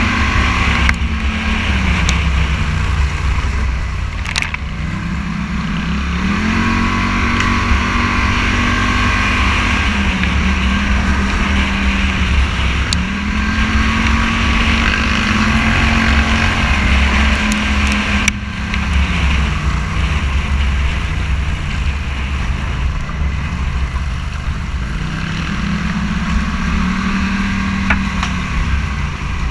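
Scrambler motorcycle engine running under way, its pitch rising and falling again and again as the throttle is opened and eased off, over a heavy low rumble.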